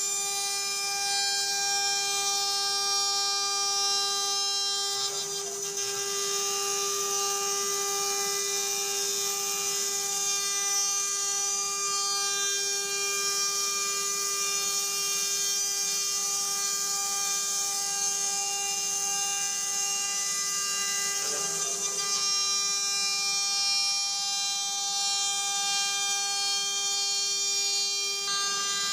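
CNC router spindle running with a steady high whine while cutting into a wood panel, with a hiss of cutting over it; the tone wavers briefly about five seconds in and again near 22 seconds.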